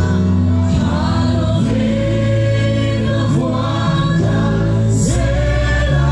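A large congregation singing a Mizo gospel hymn together over instrumental accompaniment with steady held bass notes.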